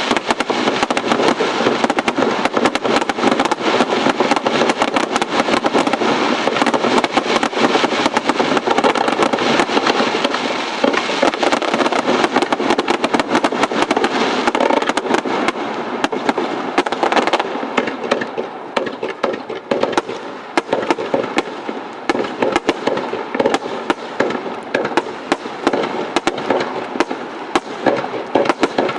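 Aerial fireworks display: a dense, continuous crackle of many rapid small pops. It thins out a little over halfway through.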